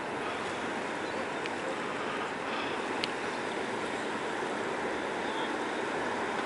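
Steady shoreline ambience of small waves washing and lapping in shallow seawater, with a couple of faint clicks.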